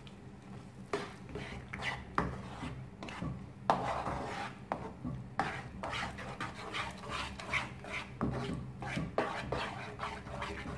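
Wooden spatula stirring and scraping cooking cream into a thick flour-and-onion base in a nonstick pan, in irregular strokes with sharp knocks against the pan. A steady low hum runs underneath.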